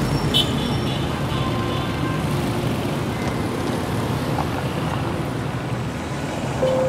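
Steady road-traffic noise, a constant rumble of passing cars, with a single held tone coming in near the end.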